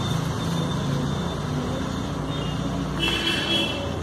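Steady rumble of road traffic passing by, with a brief high tone about three seconds in.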